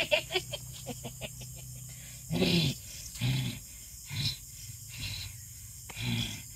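A man's voice laughs in quick pulses for the first second or so, then gives about four short, throaty growls roughly a second apart, put on as the voice of a possessing jinn.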